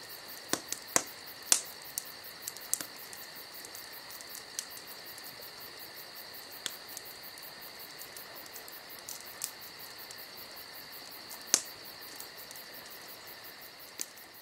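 A steady, high insect trill with fast, even pulses. A few sharp clicks are scattered through it, the loudest about a second and a half in and again about three quarters of the way through.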